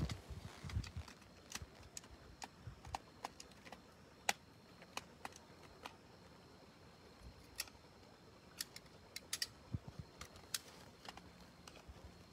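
Faint, irregular small clicks and rattles of a handheld battery lamp being handled while its battery is changed.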